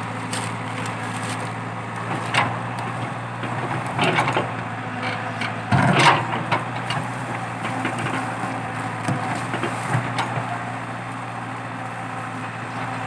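Komatsu PC80 excavator's diesel engine running steadily under load while a eucalyptus stump's wood cracks and splinters, with sharp cracks about two and four seconds in and the loudest snap about six seconds in.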